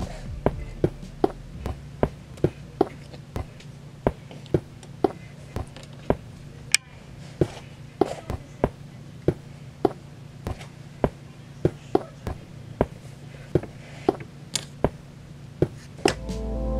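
A steady run of sharp clicks, about two to three a second, over a low steady hum.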